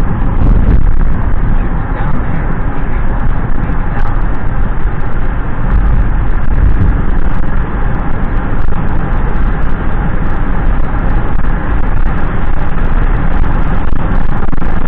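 Steady road noise of a moving car heard from inside the cabin: a continuous rumble of the car driving along, deepest at the bottom, with no change in pace.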